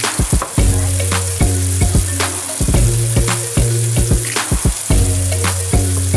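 Chopped tomatoes and onions sizzling as they fry in oil in a pan, a steady hiss, with background music with a steady beat and a repeating bass line.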